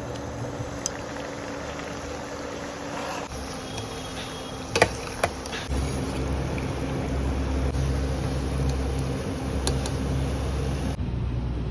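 Shakarpare dough pieces deep-frying in hot oil with a steady sizzle. Two sharp clinks come about five seconds in, and a low rumble joins about a second later.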